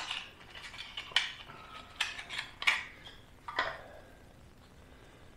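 A new spark plug being taken out of its small cardboard box by hand: about five light clicks and clinks in the first four seconds, a couple with a short metallic ring.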